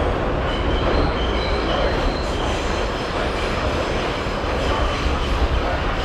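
R68 subway car running between stations: steady rumble of wheels on the rails, with a few short high-pitched wheel squeals in the first half.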